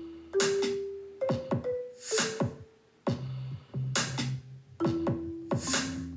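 Playback of a short homemade ringtone built from loops: a drum-machine beat with pitch-dropping kicks and sharp hi-hat-like clicks under held keyboard notes, with a simple marimba melody in C recorded on the keys.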